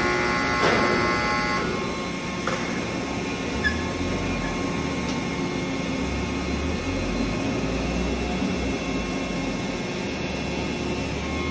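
Steady machine hum of a factory floor: even whirring noise with several steady tones, and a low rumble through the middle.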